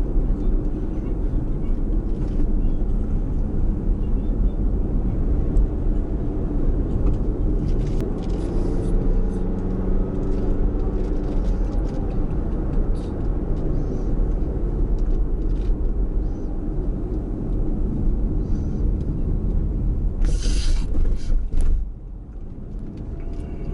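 Car driving through town, heard from inside: a steady low rumble of engine and tyres on the road. A short hiss comes about twenty seconds in, after which the rumble is quieter.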